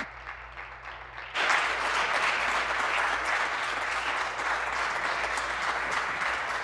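Members of a legislative chamber applauding at the end of a speech. It is quieter for about the first second and a half, then swells suddenly into loud, steady clapping.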